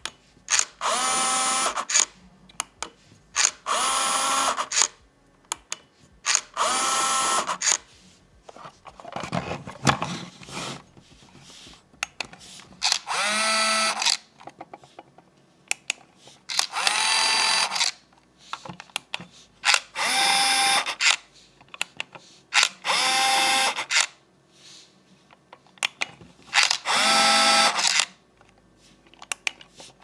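Electric drive motors of a Nuki Smart Lock Pro 3 and a fourth-generation Nuki Smart Lock Pro running in turn, about eight runs of roughly a second each with short pauses between. Each run is a whine that rises in pitch as it starts and then holds. The two motors sound different, and the newer one turns a little faster. A lower, rougher mechanical noise comes about nine seconds in.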